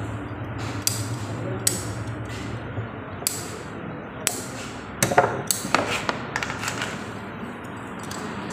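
A hand-held PPR pipe cutter clicking as its jaws are worked through a green PPR plastic pipe. There are sharp single clicks about once a second, then a quicker run of clicks and snaps about five seconds in, as the blade closes through the pipe.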